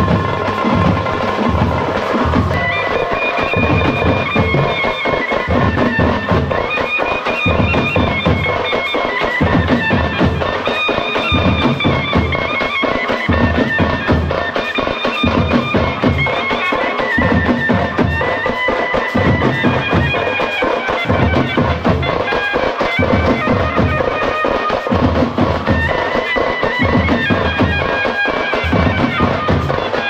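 Tamte frame drums beaten in a steady rhythm, with a wind-instrument melody coming in over them about two seconds in.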